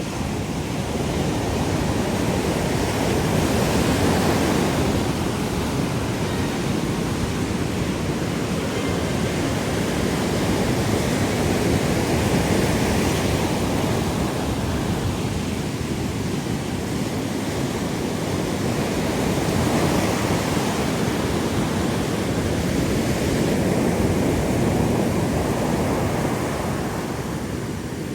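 Continuous rushing water noise that swells and eases every several seconds, with no voice or music.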